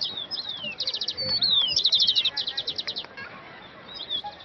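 Songbirds chirping and singing in rapid trills and short falling whistled notes. The song thins out and grows quieter near the end.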